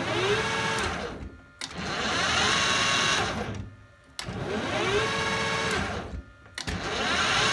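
A lathe's 5 hp three-phase motor on a Delta variable frequency drive is started and stopped several times. Each start brings a rising whine, and each stop comes within about a second as the braking resistor takes the motor's energy.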